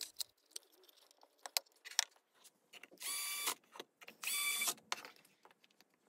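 Two brief high-pitched whirs of a small electric motor, each about half a second long and about a second apart, with scattered light clicks and taps around them.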